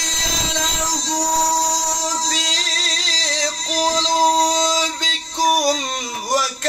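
A male qari reciting the Quran in melodic tajweed style, holding one long ornamented note that wavers in pitch and dips lower near the end.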